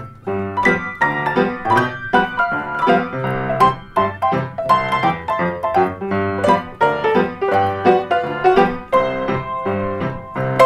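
Solo piano playing a ragtime tune: a dense run of notes over low bass notes and chords, at a steady, even beat.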